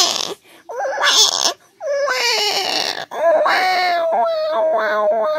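A person crying in a high-pitched voice as an acted cry: short sobbing wails broken by gasping breaths, then a long held wail beginning about three seconds in that breaks into pulsing sobs near the end.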